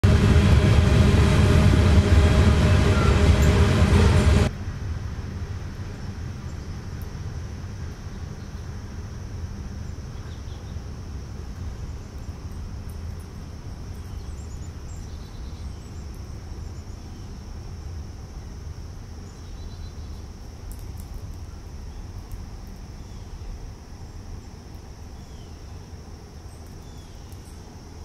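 Outdoor ambience at a bird feeder: a steady high insect drone over a low rumble, with scattered faint bird chirps. For the first four and a half seconds a much louder, dense sound full of steady tones dominates, then it stops abruptly.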